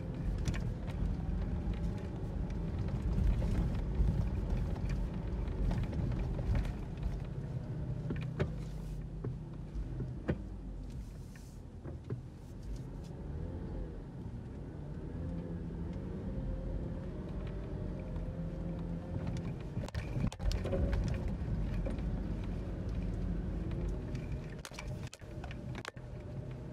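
A car driving: steady engine and road rumble, the engine's pitch rising and falling as the speed changes, with a few short knocks and rattles along the way.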